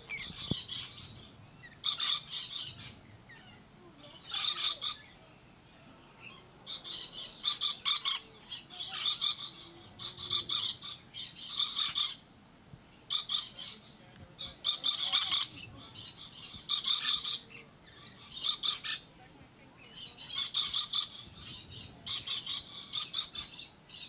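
Red-collared lorikeet calling: more than a dozen high-pitched calls of about a second each, spaced one to two seconds apart.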